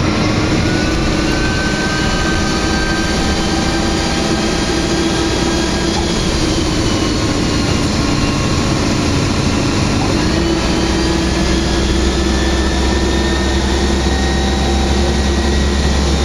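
Optare Solo midibus on the move, heard from inside the passenger saloon: the diesel engine and drivetrain run steadily with a rumble and a faint whine that drifts a little in pitch. The low rumble grows heavier near the end.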